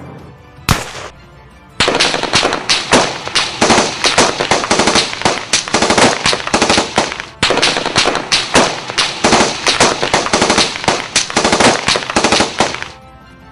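A single sharp bang, then a long, rapid string of sharp bangs and crackles lasting about eleven seconds, with a brief break near the middle.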